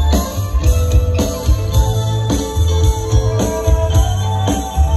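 Loud music with a heavy bass and a steady beat about twice a second.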